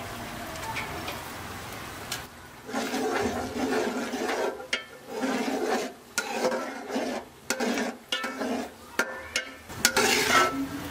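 Long steel spoon stirring thick phirni in a steel pot, scraping and clicking against the pot's bottom and sides in uneven strokes, heavier from about three seconds in.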